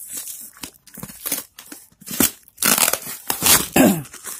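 Cardboard and packing tape being torn open by hand: a run of irregular ripping and crinkling noises, louder in the second half.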